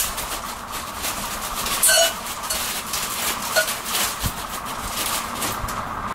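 Plastic bag crinkling and rustling as it is shaken over a baking pan, over a steady background hum. A short, sharper sound stands out about two seconds in, and a smaller one a little later.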